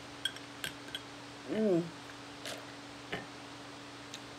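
Close-up eating mouth sounds: a few sharp clicks and smacks, and a short falling 'mm' from the voice about a second and a half in, as she reacts to the heat of the very spicy chicken.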